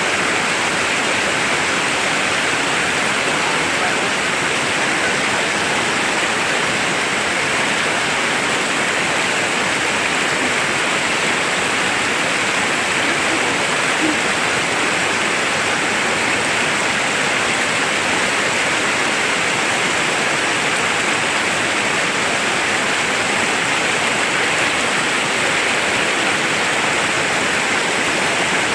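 Steady, loud rush of flowing river water, an even roar that holds constant throughout.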